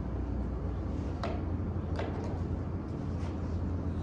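Faint, sharp clicks of golf balls being struck in other bays, about four of them, over a steady low rumble.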